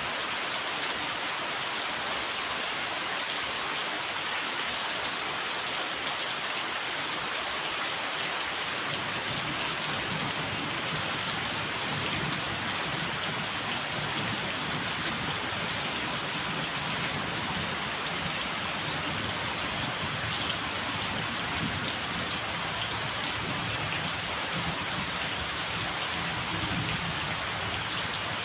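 Steady rain falling and pattering on surfaces, with a low rumble of distant thunder coming in about a third of the way through and rolling on.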